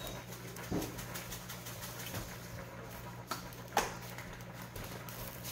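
Spice jar handling: a muffled knock about a second in, then two sharp clicks of the jar near the end as oregano is shaken out, over a steady low hum.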